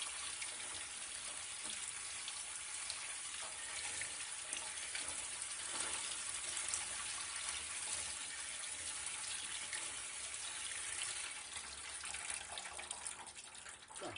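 Kitchen tap running into a stainless-steel sink, the water pouring through rice in a plastic colander as the rice is rinsed by hand to wash off its surface starch. The flow thins out and stops near the end.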